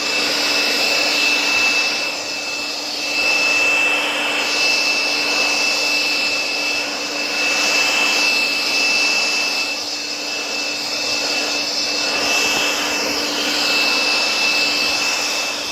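Leaf blower running steadily, a rushing blast with a fixed high whine over a low hum, swelling and easing every few seconds as it is swept over the trail to clear leaves and small twigs.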